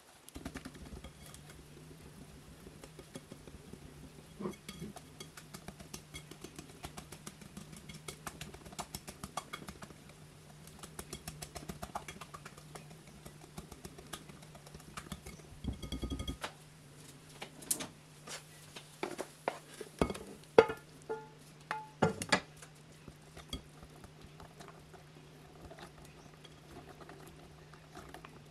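Wire whisk beating cake batter in a glass bowl: quick, continuous clicking and scraping of the whisk against the glass, with a few louder knocks about two-thirds of the way through. A steady low hum sits underneath.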